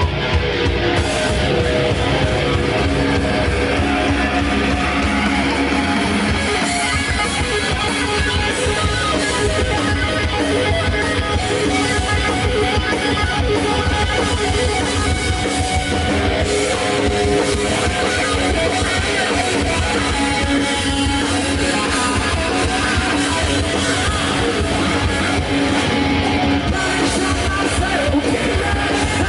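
Live rock band playing a guitar-led passage, electric guitars over a drum kit. The heaviest bass eases off about six seconds in.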